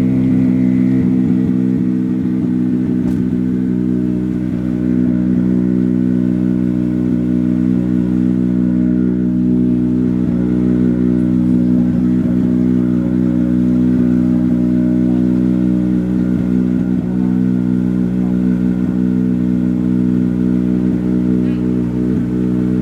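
Engine running steadily at a constant speed: a dense, unchanging drone of low tones with no revving or pass-by.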